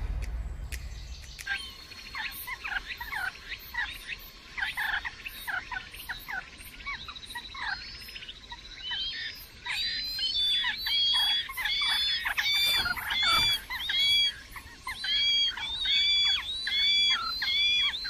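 Nestling songbirds begging: many short high chirps, settling about halfway through into a regular run of louder, arched cheeping calls about twice a second.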